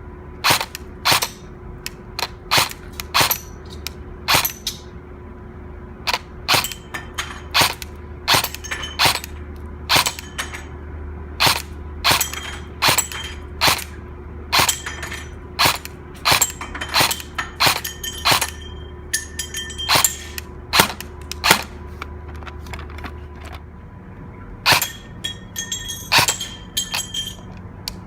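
Airsoft gun firing single shots one after another at an uneven pace, about one to two a second, each a sharp crack. A few shots are followed by a brief ringing tone.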